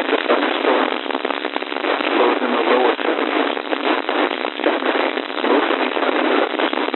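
Radio static: a steady, loud hiss full of crackles, heard through a radio receiver's narrow audio band.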